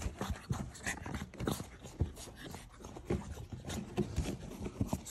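French bulldog puppy scuffling and rubbing against the carpet as it wriggles on its back: a run of small irregular rubs and soft taps.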